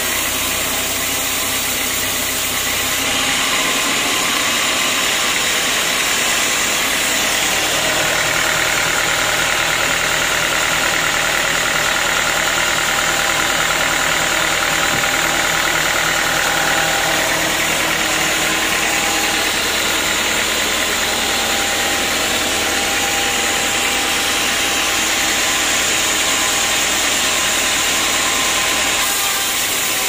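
Band sawmill machinery running steadily, a continuous engine-like drone with no sawing strokes or breaks in it.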